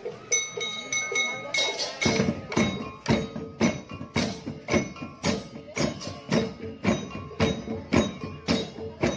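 Balinese parade percussion ensemble of kendang drums, okokan wooden cowbells, kukul slit drums and cengceng cymbals. A quick run of ringing metallic strikes for the first couple of seconds, then the full group plays a steady beat of about two strokes a second, with clattering strokes in between.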